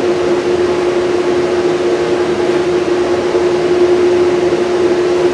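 Belt-driven table saw running with a steady hum.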